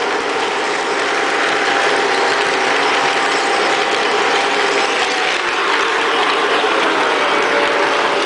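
Lionel Legacy GP-7 O-gauge model diesel train running along its track: a steady, even mechanical clatter of wheels and gearing on the rails, with faint steady tones under it that fit the locomotive's electronic diesel sound.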